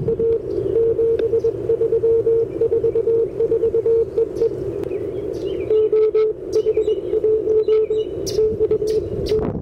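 Morse code (CW) tone from an Icom IC-705 transceiver, a single steady note keyed on and off in dots and dashes, with a short break about halfway before the keying resumes.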